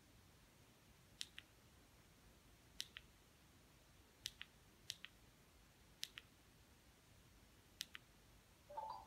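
Six clicks of an LG Magic Remote's OK wheel button being pressed and released, each a sharp click followed by a softer one, one to two seconds apart, as digits are picked on the TV's on-screen keypad. Near the end music from the TV starts.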